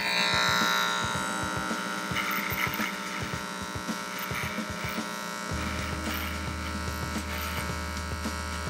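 Electric hair clippers running with a steady buzz, cutting the fringe of a human-hair wig.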